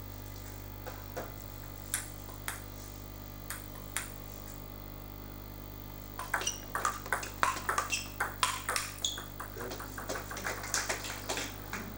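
Table tennis ball clicking on the table and bats: a few scattered bounces at first, then from about halfway a fast rally of quick, sharp ball hits and table bounces. A steady low hum lies underneath.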